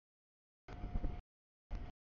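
Double-stack freight train rolling past: a rumble with a steady high tone, heard only in two short bursts about two-thirds of a second in and near the end, cut off abruptly by audio dropouts with dead silence between.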